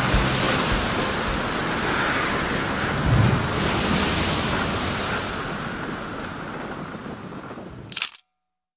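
Wind buffeting the microphone and water splashing against the hull and outrigger of a moving outrigger boat in choppy water, with a low thump about three seconds in. It fades over the last few seconds and cuts off abruptly near the end.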